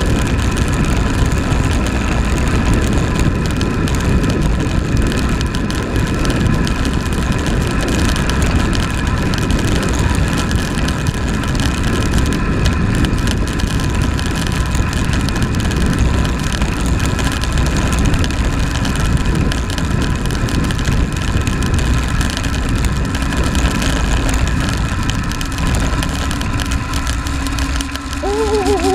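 Wind rushing over a handlebar-mounted camera's microphone as a road bike descends fast, a loud steady rumble with a steady high hum over it. A short wavering tone sounds near the end.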